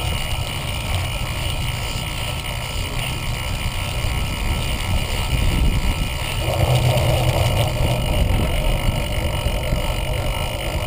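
Wind buffeting on the microphone of a GoPro Hero 1 and the rumble and rattle of a cyclocross bike ridden at speed. The rumble grows louder about six seconds in as the bike comes off the grass onto pavement.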